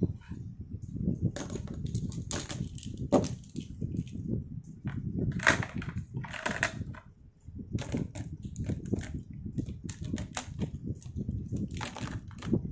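Pens and a spiral notepad being handled on a desk: scattered taps, clicks and short scrapes of plastic against the tabletop and paper. Near the end, plastic felt-tip pens clatter together as a bundle of them is gathered up.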